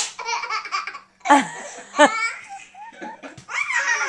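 A small child laughing hard in repeated high-pitched bursts, with a short pause about a second in.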